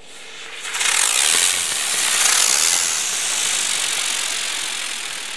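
A 'Two Color Space Ship' consumer firework spraying sparks with a loud, steady hiss as it lifts into the air. The hiss swells about a second in and fades toward the end.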